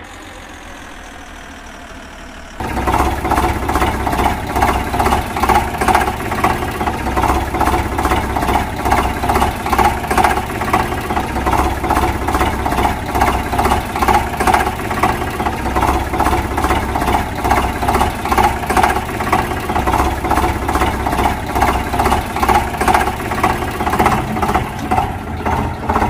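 Engine idling sound, a steady rapid pulsing chug, coming in loud about two and a half seconds in after a quieter stretch; over push-along toy vehicles it is a dubbed engine sound effect.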